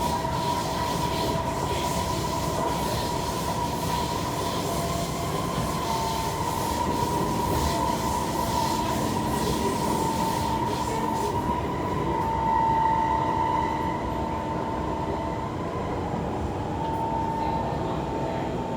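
Kawasaki C151 metro train running between stations, heard from inside the car: a steady rumble with a strong, steady motor whine. The uploader considers the motor noise on this train bad. Light clicking from the track fades out a little past the middle.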